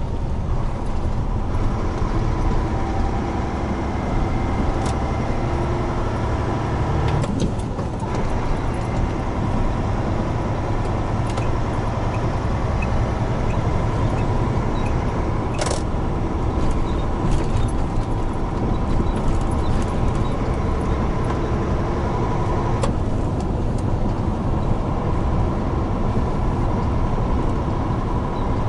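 A large truck's diesel engine and tyre noise, heard from inside the cab as it drives at speed. The sound is a steady running rumble with a single sharp click about halfway through.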